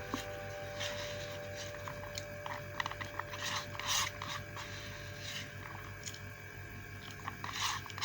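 Close-up eating sounds: irregular chewing, mouth smacks and small clicks of food being handled, over a faint steady hum.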